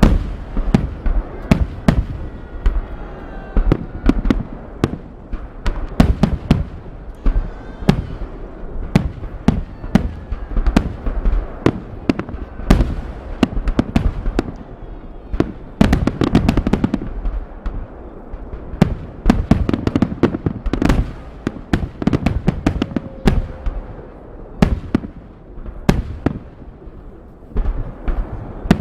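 Festive fireworks salute: a fast, continuous run of shell bursts and crackling bangs, several a second, with deep booms under many of them.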